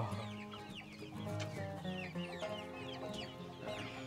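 A flock of chickens clucking and peeping, with many short falling peeps coming one after another, over background music.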